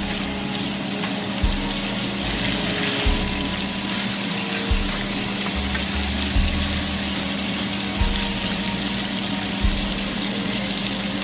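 Sliced onions and Schüblig sausage sizzling in a frying pan, an even hiss, under background music with a slow, even beat.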